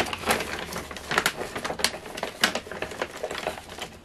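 Loose tropical soil being tipped and worked into a small clear plastic enclosure: irregular scratchy rustling with quick light clicks and pattering.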